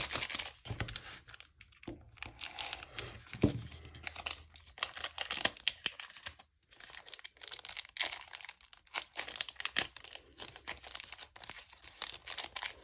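Foil wrapper of a Select Footy Stars Prestige card pack crinkling and being torn open by hand, a dense, irregular crackle.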